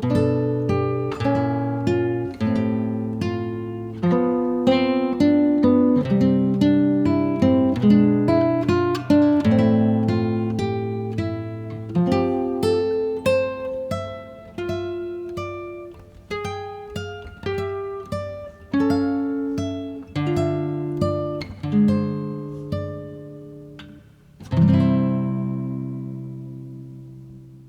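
Background music: acoustic guitar playing plucked notes and chords, ending on a final strummed chord that rings and fades out.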